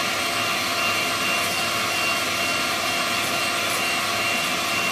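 Electric hand whisk running steadily with a constant motor whine, its whisk attachment beating egg yolk into whipped egg whites in a metal bowl.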